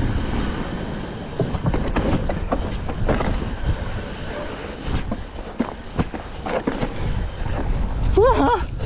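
Mountain bike tyres rolling over a wooden plank boardwalk, clattering and knocking irregularly across the slats, with the bike rattling. A steady rumble of wind on the microphone lies underneath.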